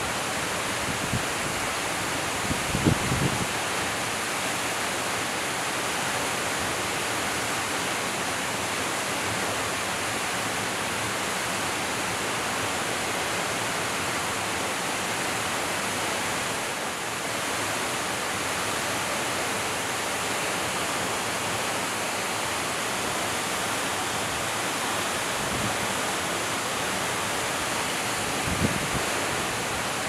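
Waterfall pouring into a pool: a steady, even rush of falling water, with a few brief low thumps about three seconds in and again near the end.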